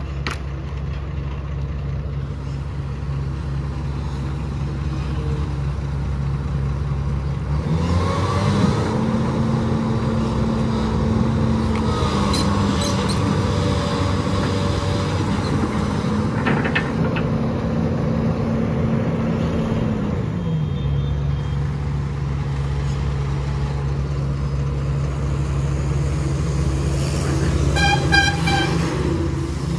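SANY crawler excavator's diesel engine idling, then revving up about eight seconds in and holding the higher speed for some twelve seconds as the hydraulics swing the boom and bucket, before settling back to idle. A vehicle horn toots briefly near the end.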